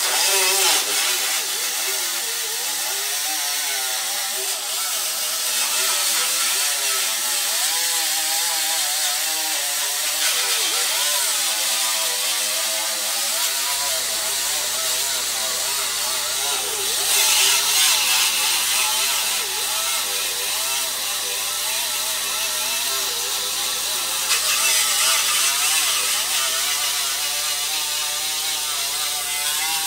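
Mini air grinder with a 24-grit Roloc disc grinding welds flush on car-body sheet steel, its pitch wavering up and down as it is pressed against the metal and eased off.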